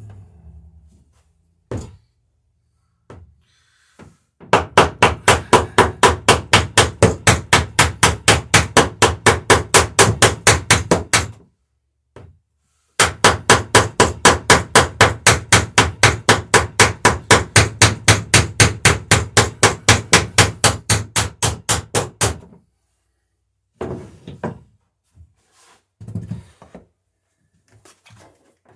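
Rapid light hammer blows on copper boat rivets, peening them over in the wooden planking: two long runs of even strikes, about five or six a second, with a short pause between. A few scattered knocks of tools follow near the end.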